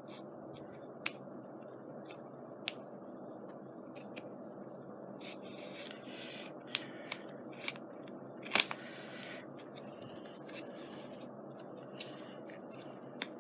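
Scissors snipping paper in a few separate cuts, with small clicks and paper rustling between them; the sharpest snip comes a little past the middle.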